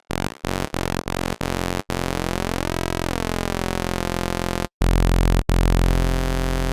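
Electronic synthesizer sound played through a stack of effects such as delay. It starts as short stabs repeating about three times a second, then turns into a sustained tone with a sweeping, shifting quality. A heavier, louder sustained tone comes in about five seconds in.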